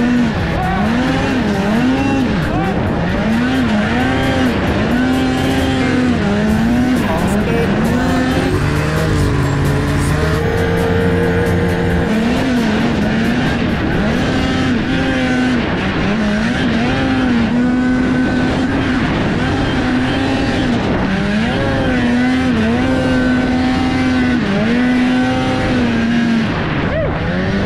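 2003 Polaris RMK 700 snowmobile's two-stroke engine running hard while riding through snow, its pitch rising and falling again and again as the throttle is worked, with stretches held steady.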